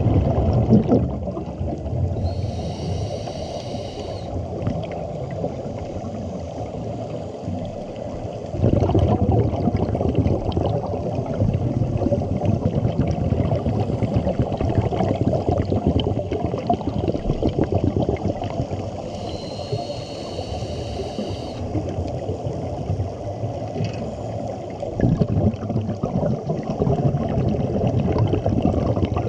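Scuba regulator breathing heard underwater: a low, continuous rumble of exhaled bubbles that swells about nine seconds in and again near the end, and two inhalations through the regulator, each a hiss with a thin high whistle lasting about two seconds.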